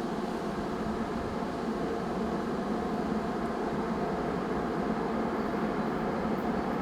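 Diesel engine drone of an approaching 2TE116 two-section diesel locomotive, steady with a few held tones and slowly growing louder.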